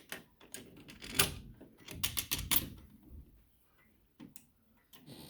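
Irregular clicks and knocks from handling something close by, with the sharpest knock about a second in and a quick run of clicks around two seconds in.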